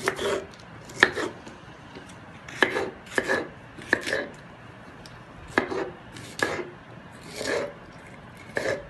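Kitchen knife chopping green pepper on a wooden cutting board: the blade knocks against the board in irregular clusters of two or three strokes, with short pauses between.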